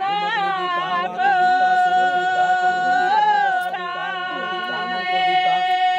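A high voice singing a song, bending through the first second and then holding long steady notes.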